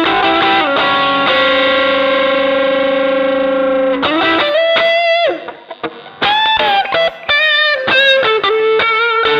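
Electric guitar played through an MXR Dynacomp compressor pedal: a chord rings with long, even sustain for about four seconds, then single notes follow with bends and vibrato, and it settles on a held note near the end.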